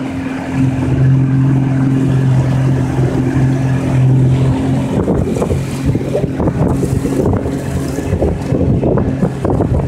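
Small outboard motor on an aluminum fishing boat running steadily at low cruising speed, a constant low hum. From about halfway through, choppy wind buffeting on the microphone grows over it.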